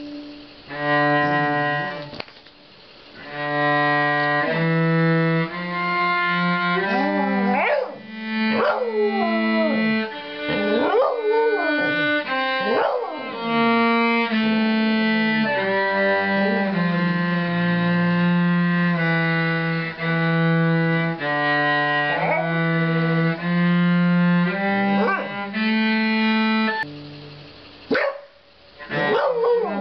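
A cello playing slow held notes while a dog howls along, its wailing howls sliding up and down in pitch over the notes several times. There are short breaks in the playing.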